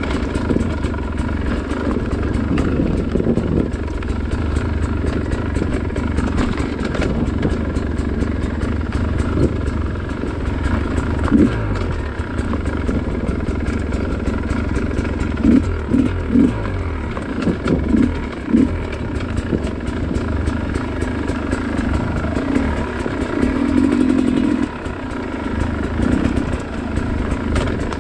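Dirt bike engine running while being ridden, its engine speed rising and falling, with several short louder blips in the middle stretch.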